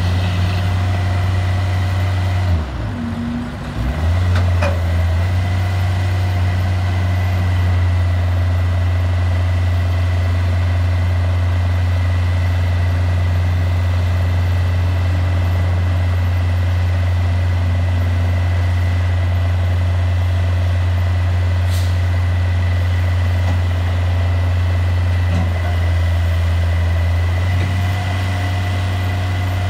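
Kubota V2203 four-cylinder diesel on a Steelbro side loader running steadily to drive the hydraulic pump as the lifting cranes are worked, a constant low drone with a steady whine above it. The level dips briefly about three seconds in, and there are a couple of faint clicks.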